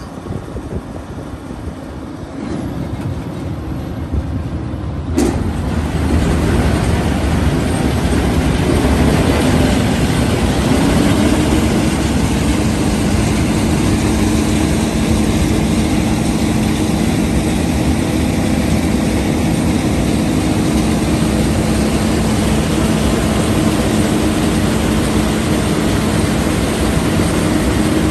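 Combine harvester running as its Shelbourne Reynolds XCV36 stripper header's rotor is engaged and spins up. The sound grows louder over the first six seconds, with a single sharp click about five seconds in, and settles into a loud, steady hum from about ten seconds in.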